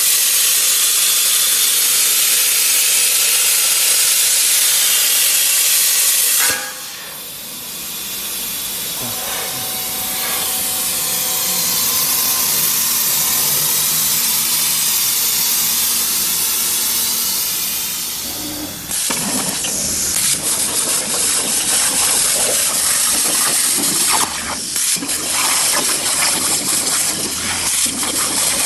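CNC plasma cutting torch hissing loudly and steadily as it cuts metal. It drops off about six and a half seconds in, builds back up, and from about nineteen seconds turns into a rougher, crackling hiss.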